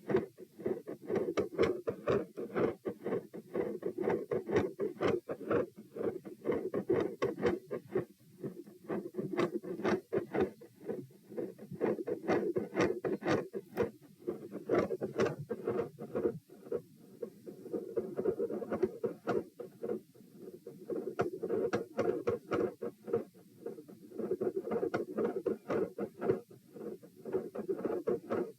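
A fast heartbeat recorded against the chest, about 100 to 120 beats a minute. The beats swell and fade in loudness every few seconds with breathing, the pronounced phasic respiratory pattern.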